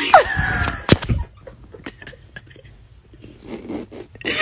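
A puppy gives a short, high whine that falls in pitch as it is coaxed to 'say wee'. This is followed by a sharp click about a second in and soft rustling as it is handled.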